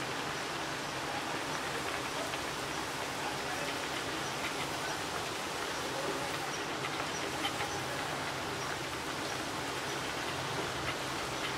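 Pumpkin vadas deep-frying in hot oil in a kadhai: a steady sizzle with fine crackling.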